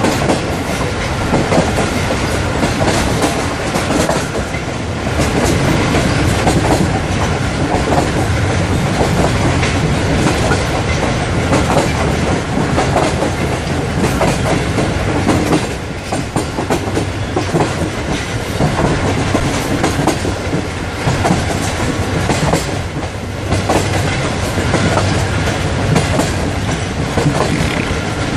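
Passenger express train running along the track, its wheels clattering over the rail joints with a steady rumble.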